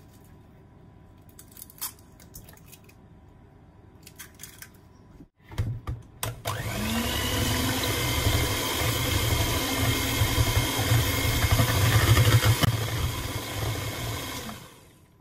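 Electric hand mixer whisking egg and milk in a plastic bowl: the motor starts about six seconds in with a short rising whine, runs steadily for about eight seconds and winds down near the end. Before it, a few light clicks and taps.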